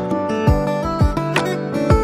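Background music with a steady beat and a plucked guitar part.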